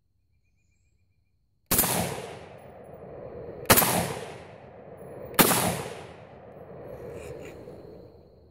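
Ruger Mini-14 semi-automatic rifle fired three times with cast-bullet handloads, starting nearly two seconds in, the shots about two seconds and then a second and a half apart. Each shot rolls off in a long echoing tail, and the action cycles reliably on every round.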